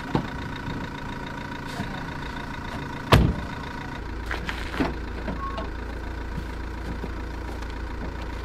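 Small delivery van's engine idling steadily, with a door slammed shut about three seconds in and a lighter clunk of the rear door being opened a little later.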